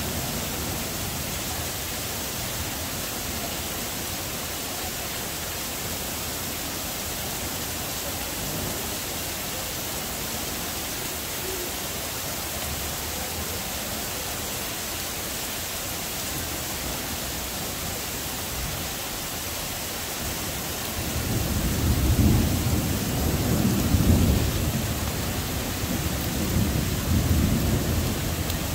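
Heavy summer thunderstorm downpour falling steadily. About two-thirds of the way through, a roll of thunder rumbles in and swells several times near the end.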